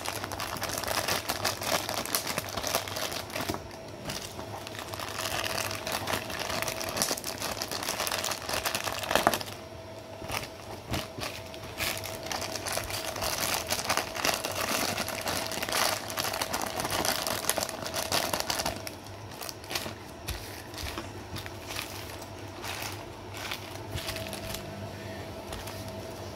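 Clear plastic zip bags crinkling and rustling as hands unpack micro servos and their small parts, a dense crackle that thins out in the last several seconds, over a faint steady hum.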